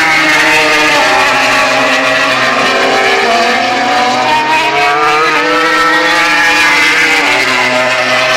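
Several racing motorcycle engines running at high revs, their overlapping notes rising and falling as the bikes accelerate out of a corner.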